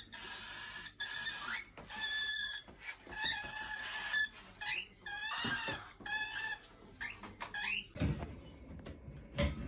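Cockatiel chicks calling in a run of short chirps and calls, some sliding in pitch. A few low knocks come near the end.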